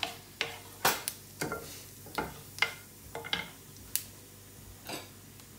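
Cumin seeds sizzling in hot ghee in a non-stick frying pan while a wooden spoon stirs them, with sharp, irregular ticks and crackles about every half second. This is the tempering (tadka) stage, whole cumin frying in the fat.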